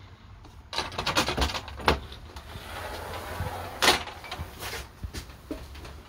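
A fold-up bed being swung up against the wall: a run of rattling, clattering knocks from its frame and hardware, a scraping rush as it moves, then a sharp knock about four seconds in, followed by a few lighter knocks.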